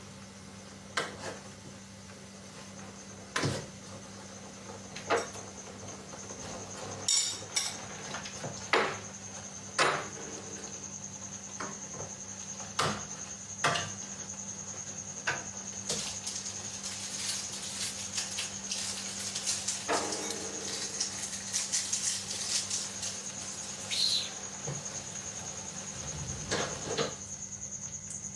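Cooking sounds: scattered clinks and knocks of pots, pans and utensils, a dozen or more separate strikes, some briefly ringing. Under them runs a steady high insect trill, like crickets, and a low steady hum.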